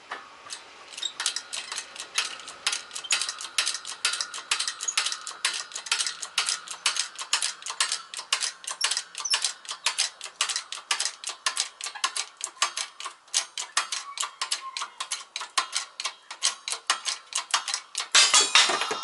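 Hydraulic bottle jack of a 20-ton shop press being pumped in quick short strokes, clicking about four times a second as it presses an old control arm bushing out. Near the end comes a louder burst of metal clatter as the bushing comes free.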